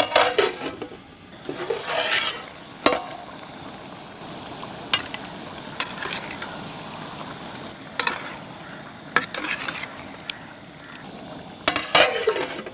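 A perforated metal ladle stirring and scraping chicken in thick masala in a large metal pot, with sharp clinks of metal on metal now and then. The curry sizzles steadily as it cooks down between strokes.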